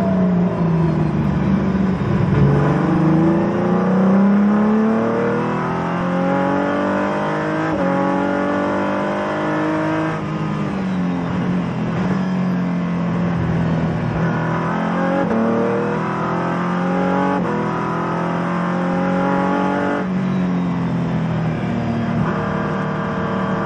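Race car engine heard from inside the cockpit, climbing in pitch through the gears with sudden steps down at each upshift. The pitch falls under braking about two seconds in and again around fourteen seconds in.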